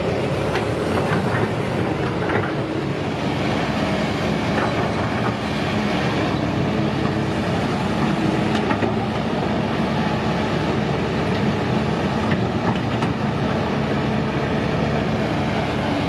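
Diesel engines of heavy earth-moving machines, a backhoe loader and a Kobelco SK200 crawler excavator, running steadily, with frequent metal clanks and rattles.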